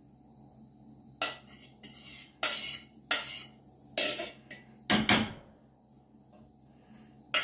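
Metal fork clinking and scraping against a small aluminium saucepan and frying pan as boiled eggs and spinach are scraped out of the saucepan into the frying pan. The clinks come irregularly, and the loudest is about five seconds in.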